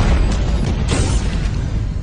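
Dramatic soundtrack music with heavy low booms and rumble, and a brief noisy burst about a second in.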